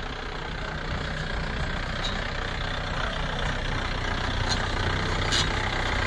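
Jeep engine running as the jeep drives slowly up a rough stone track towards the listener, growing steadily louder as it approaches.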